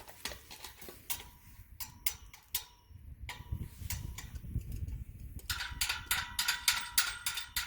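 Ratchet wrench clicking as a gate's adjustable hinge bolt is turned: a few scattered clicks at first, then a fast run of clicks over the last two seconds or so.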